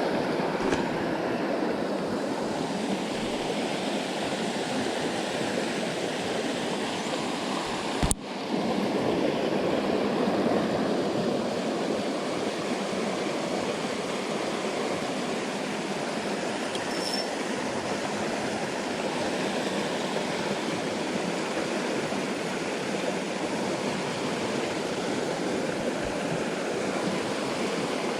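Jungle stream water rushing over rocks with a steady, even sound. A brief click and dropout come about eight seconds in.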